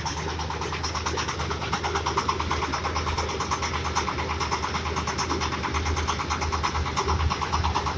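Single-cylinder diesel engine of a trailer-mounted corn sheller running at a steady speed, with a rapid, even beat.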